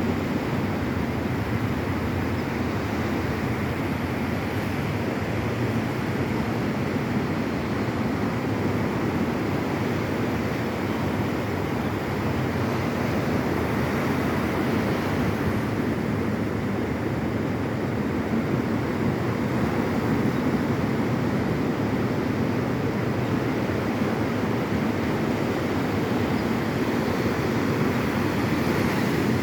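Ocean surf rushing steadily onto a beach, an even, continuous wash of sound.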